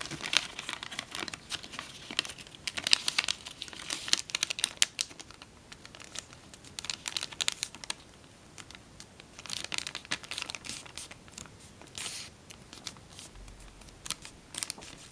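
Self-made tissue foil (tissue paper laminated to aluminium foil) crinkling and crackling as it is folded and creased by hand, in several short spells of sharp crackles with quieter gaps between.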